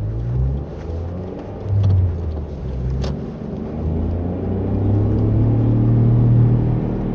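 Toyota Vitz driving with a worn wheel hub bearing: a low roar from the bearing mixed with road noise, swelling louder from about four seconds in. A single sharp click about three seconds in.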